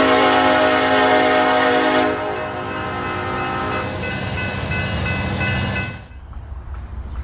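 Train horn sounding a loud, steady chord for about two seconds, then continuing more quietly before cutting off about six seconds in.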